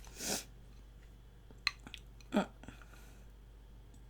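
Quiet eating sounds: a short noisy mouth sound near the start, a faint click, and a second, louder short mouth sound a little past halfway, with a few soft clicks.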